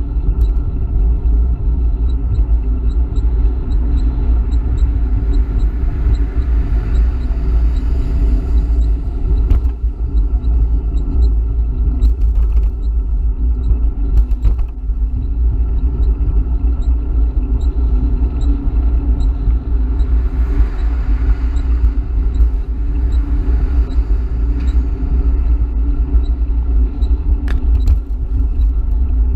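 Wind rumbling steadily on the microphone of a handlebar-mounted camera on a moving e-bike, over the noise of freeway traffic, which swells twice as vehicles go by. A few short knocks are heard along the way.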